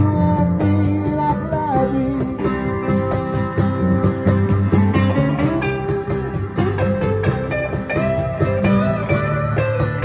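Small live band playing an instrumental passage: strummed acoustic guitar and electric guitar, with a lead line of bending, gliding notes over a steady beat kept by a cajon.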